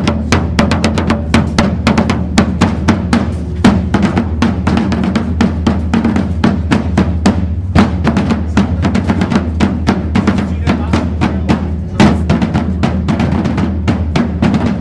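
Rope-tensioned drum with a skin head beaten with sticks in a fast, continuous marching rhythm, several beats a second.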